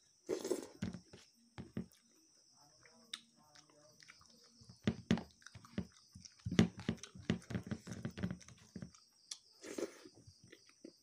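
Close-up chewing and lip-smacking of a man eating food by hand, wet clicks and smacks coming in quick irregular runs, densest from about five to nine seconds in. A faint steady high-pitched hiss lies underneath.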